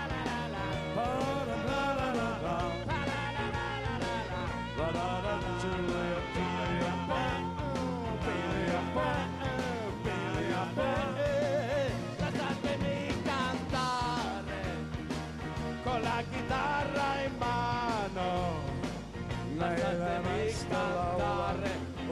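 A live band playing an upbeat rock-and-roll number with electric guitars, a horn section and drums.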